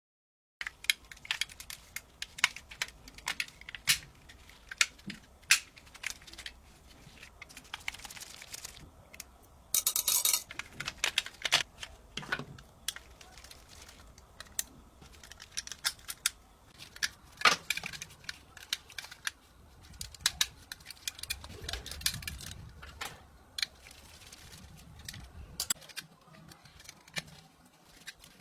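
Diecast metal model car and small tools being handled: irregular clicks, taps and light metallic clinks, with a short harsh rasping noise about ten seconds in.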